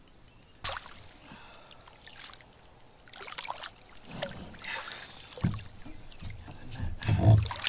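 Water splashing and sloshing beside a fishing kayak as a hooked smallmouth bass is scooped into a landing net. Several dull low thumps come in the second half, the loudest a little after seven seconds.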